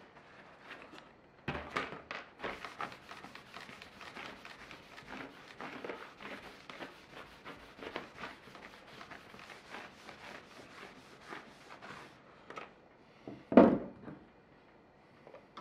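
Paper towel rubbed in quick repeated strokes along a steel handsaw blade, wiping oil over it to keep rust off. Near the end there is a single loud knock.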